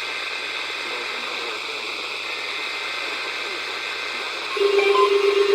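Steady hiss of radio static from a receiver between broadcasts. Near the end a louder steady low tone comes in, with short higher beeps over it.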